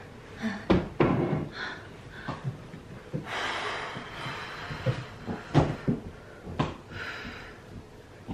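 A glass liquor bottle set down on a desk, with scattered knocks and thumps of handling and movement. About three seconds in comes a long breath blown out through pursed lips.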